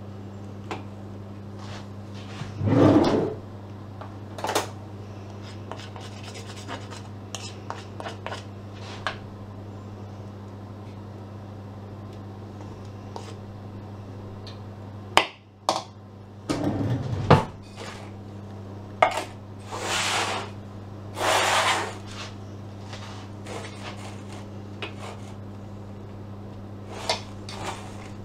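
Spatula scraping and smoothing thick cake batter in a round metal cake tin, in short strokes with scattered taps and clicks against the tin, over a steady low hum.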